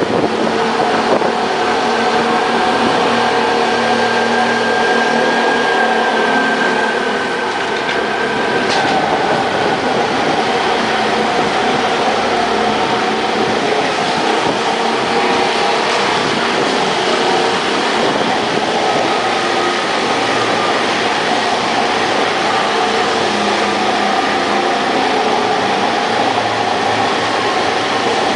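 Scooter engine running steadily with tyre and road noise inside a tunnel.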